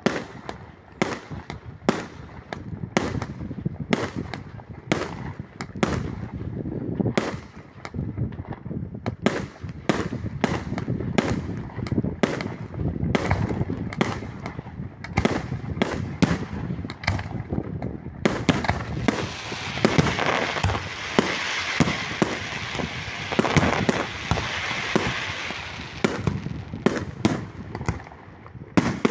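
Fireworks going off: a rapid run of sharp bangs, two to three a second, with a dense continuous hiss over the bangs for several seconds about two-thirds of the way through.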